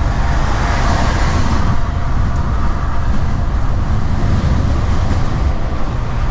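Steady drone inside a Mercedes-Benz Actros truck cab at road speed: engine and tyre noise, with a hiss that swells and fades about a second in.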